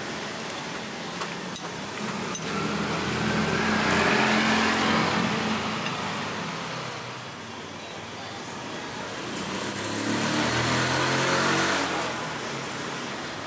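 Street traffic: motor vehicles passing close by, their engines swelling up and fading away twice, loudest about four seconds in and again around eleven seconds in.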